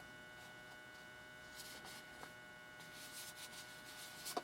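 Faint rustling and rubbing as the jump starter power bank is handled, ending in a sharp click, over a steady electrical hum.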